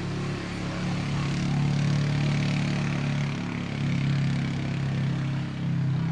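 Steady low hum of an engine or motor running at an even pitch.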